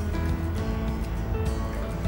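Background music with held, steady notes, and a few faint clicks.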